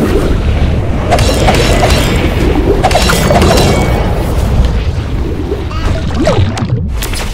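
Heavy rumbling booms from an animated monster-fight soundtrack, loud throughout, with music mixed underneath.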